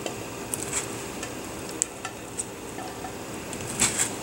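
Cauliflower florets dropped a few at a time into a steel pot of boiling water, landing with small irregular splashes and taps, the loudest cluster near the end, over a steady hiss.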